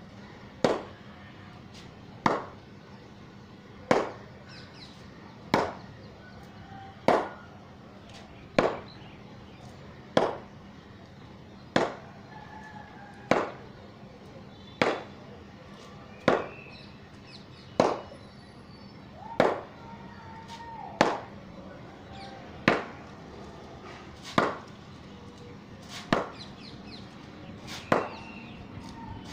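Wooden cricket bat repeatedly striking a ball hung on a string, a sharp knock about every second and a half in a steady rhythm.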